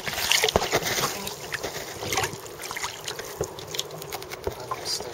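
Water sloshing and splashing against the hull of a small sailing dinghy moving through the water, in quick irregular slaps and gurgles.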